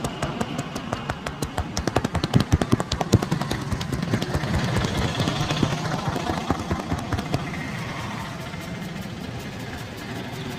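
Rapid percussive massage strokes of hands slapping and tapping on a person's body, many a second, loudest in the first few seconds and dying out about halfway through. Under them is a steady low rumble of street traffic.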